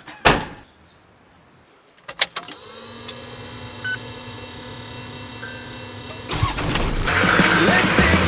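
A sharp knock, then a couple of clicks about two seconds in as the Toyota Land Cruiser 70's engine starts and settles into a steady idle. About six seconds in, louder music comes in over it.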